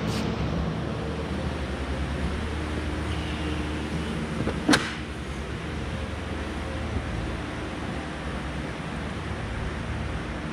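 A single sharp clunk about halfway through, most likely the Corvette's hood being raised or its latch or prop letting go, over a steady low hum.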